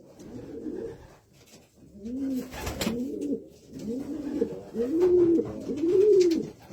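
Racing pigeons cooing: a run of rising-and-falling coos, about one a second, starting about two seconds in, with one sharp click among them.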